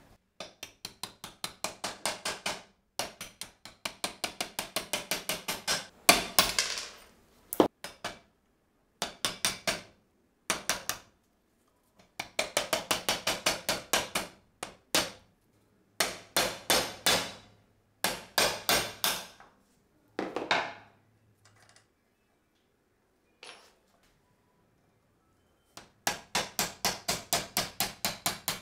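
Small hammer tapping a steel pin punch against the pins of an antique single-shot pistol's frame held in a vise. The sharp metallic taps come fast, about five a second, in runs of a few seconds with short pauses, and there is a longer quiet gap about three quarters of the way through.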